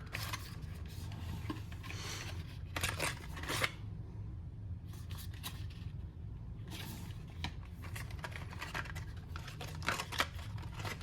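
Packaging of a leather watch strap being handled and opened by hand: irregular rustling and scraping with scattered sharp clicks.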